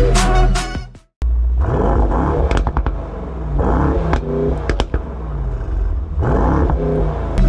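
Mercedes-AMG GT 63 S 4-door's twin-turbo V8 exhaust, stationary and being revved: about three rises and falls in engine speed, with a few sharp cracks as the revs drop.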